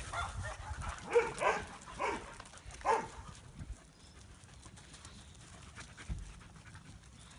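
Several dogs playing together, giving a few short yips and whines in the first three seconds, then only faint scuffling.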